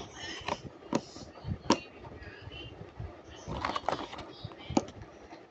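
Plastic slime containers and packaging being handled on a table: several sharp clicks and knocks at irregular intervals.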